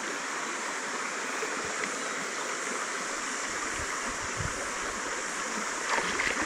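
Shallow stream running over stones and gravel: a steady rush of water.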